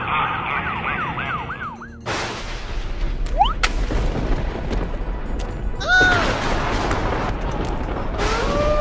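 Cartoon ambulance siren wailing in fast up-and-down sweeps, cutting off about two seconds in. A steady noisy rumble follows, with a sudden pitched sound about six seconds in that falls and then holds, and another held tone near the end.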